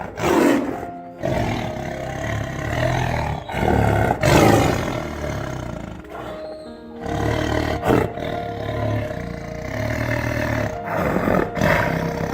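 A large wild animal roaring and growling in several separate spliced takes, over background music.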